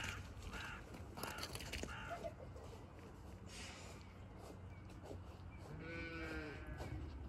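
Faint animal calls: a few short calls in the first two seconds, then one drawn-out call about six seconds in that rises and then falls in pitch.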